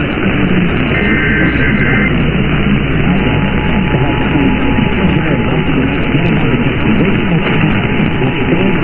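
Emergency Alert System broadcast received through heavy radio static: about a second in, a burst of the warbling two-pitch SAME header data, then from about three seconds the steady two-tone EAS attention signal starts under the static, marking the start of a new alert.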